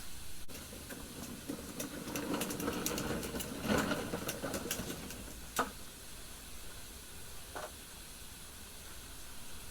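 Packaging being handled: rustling and crinkling with scattered clicks, busiest about three to four seconds in, and a single sharper knock about five and a half seconds in.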